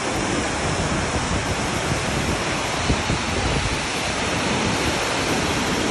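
Waterfall and whitewater mountain river rushing over granite boulders, a loud steady noise.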